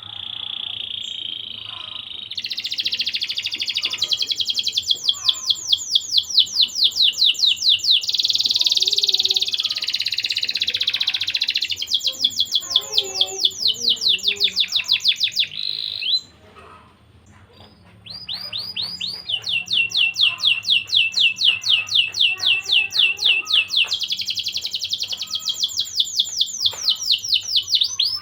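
Domestic canary singing in long phrases of rapid, evenly repeated high trills. The song breaks off for about two seconds near the middle, then starts again with more fast trills.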